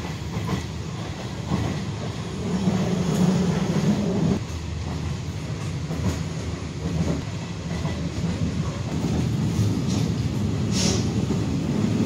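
Passenger train running, heard from inside the carriage: a steady rumble of wheels on rails with some clickety-clack. The rumble grows louder for a second or two about three seconds in.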